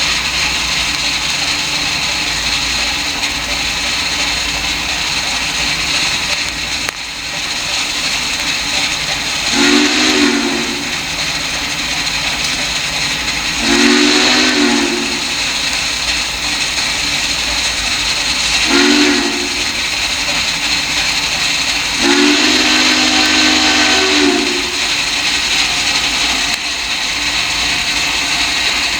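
Steam whistle of Duluth, Missabe and Iron Range Yellowstone No. 225 sounding the grade-crossing signal: two long blasts, one short and a final longer one, over a steady hiss.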